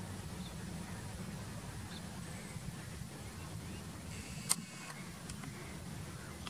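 Low, steady rumble of a Boeing 737-800's jet engines from a distance as the airliner rolls along the runway after landing. A single sharp click comes about four and a half seconds in.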